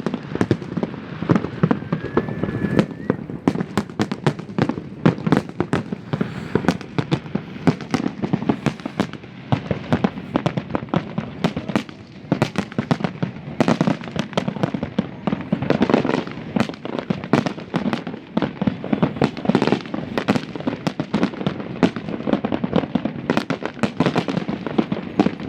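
New Year fireworks going off in a dense, continuous barrage of bangs and crackles, many every second, with a brief lull about twelve seconds in.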